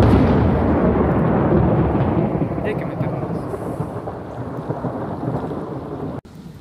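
A loud thunderclap that rolls on as a long low rumble, slowly fading for about six seconds before it cuts off suddenly.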